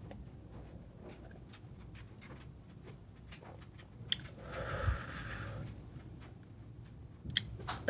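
A quiet room with a few faint clicks, and one breathy exhale about four and a half seconds in, lasting about a second.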